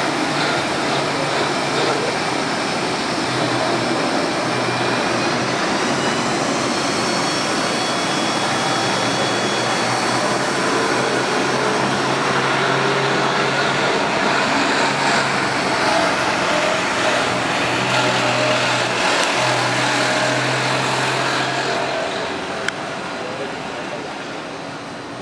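Boeing 737-200's Pratt & Whitney JT8D turbofan engines running loud, with a whine that rises in pitch a few seconds in. The sound fades away near the end.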